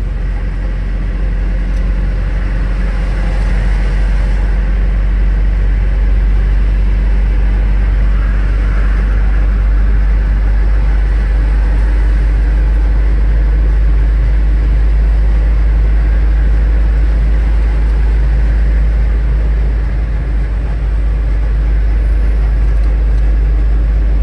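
Steady rumble of a moving vehicle heard from inside its cabin: deep road and engine noise while driving along a highway.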